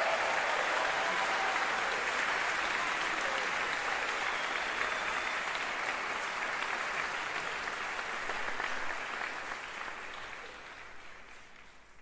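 Large concert-hall audience applauding, a dense steady clapping that dies away over the last few seconds.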